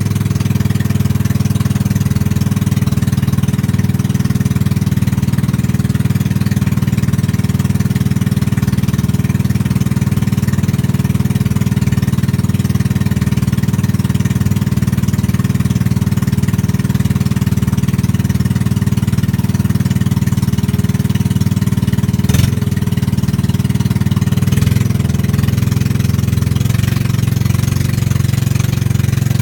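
Motorboat engine running steadily at cruising speed, a loud, even hum, with a single sharp click about three quarters of the way through.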